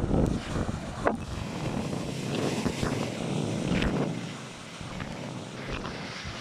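Storm wind buffeting the microphone over the rushing of stormy Baltic Sea surf, with a few sharp knocks. The gusts ease somewhat after about four seconds.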